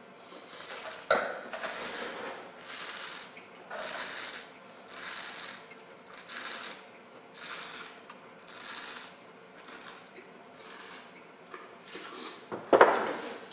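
A person tasting red wine: a sharp slurp as the wine is drawn into the mouth, then a run of hissing breaths about once a second as it is held and aired on the palate. A louder knock comes near the end.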